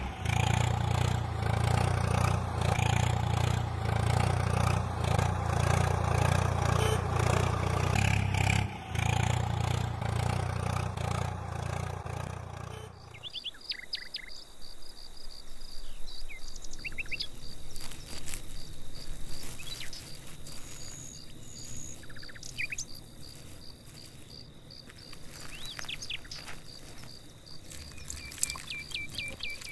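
Background music with a heavy bass beat that stops about halfway through; after it, birds chirp now and then over quiet outdoor ambience with a faint steady high-pitched tone.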